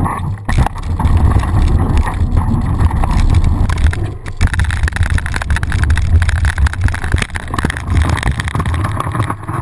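Mountain bike rolling fast down a dirt flow track, heard from a bike-mounted action camera: a steady low rumble and rush of wind and tyres on dirt, with frequent short clicks and knocks as the bike rattles over the bumps.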